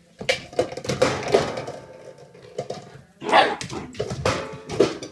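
A standard poodle puppy at play with an empty plastic bottle and a wire crate door: bouts of crackling, clicking and rattling, the longest starting about a quarter second in and two shorter ones near the end.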